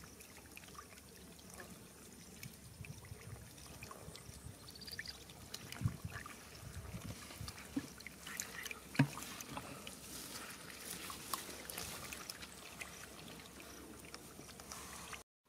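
Fish thrashing in a shallow muddy puddle: soft, irregular water splashing and sloshing with small scattered clicks, and a couple of heavier splashes about six and nine seconds in.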